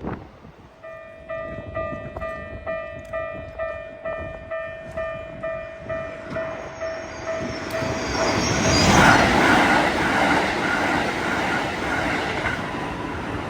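Japanese level-crossing warning bell ringing in a steady 'kan-kan' at about two strikes a second, then a Keikyu electric train rushing through the crossing at speed: rail and wheel noise swells about eight seconds in, is loudest about a second later and drowns out the bell.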